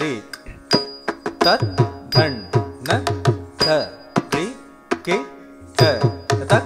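Carnatic music for a Bharatanatyam varnam in raga Nattaikurunji: mridangam strokes in a lively rhythm over sustained melodic lines.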